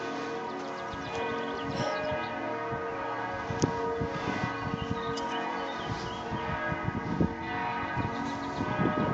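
Church bells ringing, several bells overlapping and sounding on without a break.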